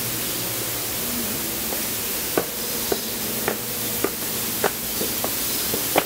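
Footsteps climbing concrete stairs, a sharp step about every 0.6 seconds starting near two seconds in, over a steady rushing hiss and a low hum.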